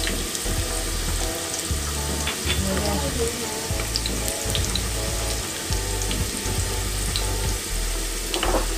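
Chopped onions, green chilli and whole spices frying in mustard oil in an aluminium pressure cooker: a steady sizzle with scattered small pops, over a low rumble.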